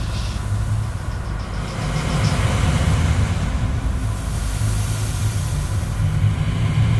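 Honda VT1100 cruiser's V-twin engine running at road speed with a low, uneven rumble, and wind rushing over the microphone that grows stronger around the middle.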